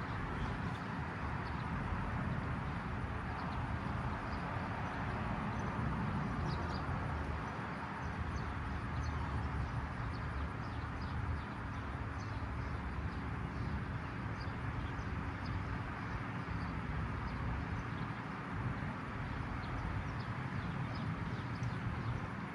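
Steady outdoor background noise with a low rumble, and faint bird chirps scattered throughout.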